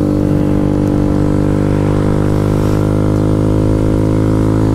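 Kawasaki Z125 Pro's 125 cc single-cylinder four-stroke engine running under way at a steady engine speed, holding one even pitch.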